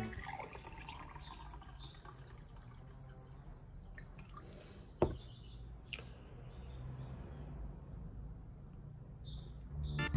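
Water poured from a glass jug into a drinking glass in the first second, then a sharp glassy knock about five seconds in as glassware is set down on a wooden table, with a lighter knock a second later. Birds chirp faintly in the background.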